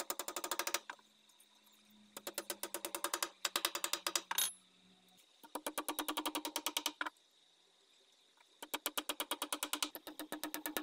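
Claw hammer driving nails into a wooden joint. It strikes in quick runs of sharp metallic taps, about ten a second, several runs of a second or so with short pauses between.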